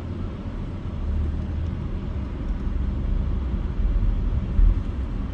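Car driving along a road: steady low rumble of engine and tyres, with a brief louder bump about four and a half seconds in.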